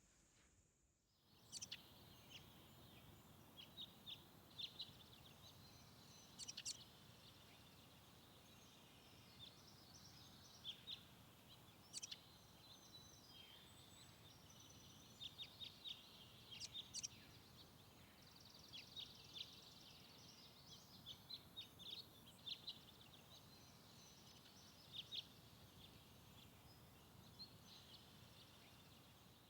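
Faint birdsong: many short, high chirps and calls from small birds, scattered throughout, over a low steady background hiss that starts about a second in.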